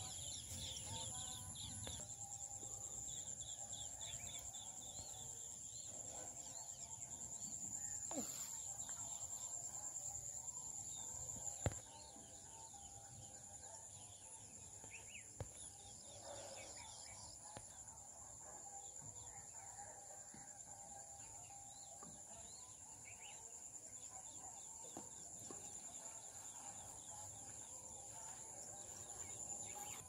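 Rural dawn ambience from a rice paddy: a steady high-pitched insect drone, typical of crickets, under frequent bird chirps and the calls of domestic fowl. A sharp click comes just before the midpoint, and the background turns slightly quieter after it.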